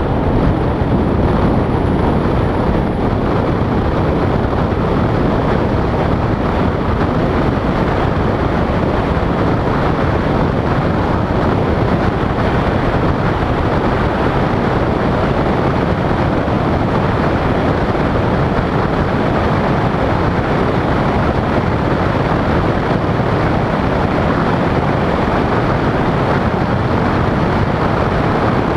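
Steady rush of wind and tyre noise from a vehicle cruising at highway speed.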